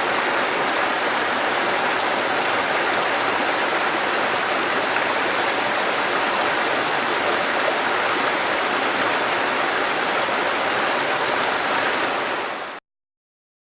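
Babbling river: a steady rush of running water that dips and cuts off abruptly to silence about a second before the end.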